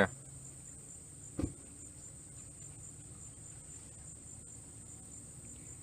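Steady high-pitched insect chorus from the riverside woods, with one short knock about a second and a half in.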